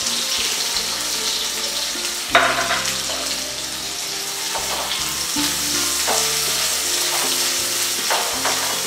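Thinly sliced onions sizzling in hot oil in a nonstick kadhai while a silicone spatula stirs them, with a few sudden louder strokes of the spatula, the strongest about two and a half seconds in.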